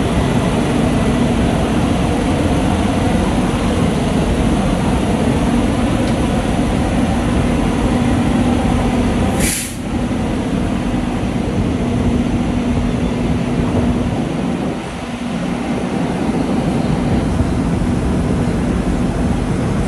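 Fire trucks' diesel engines running steadily, a loud constant drone with a low hum, with a brief hiss near the middle.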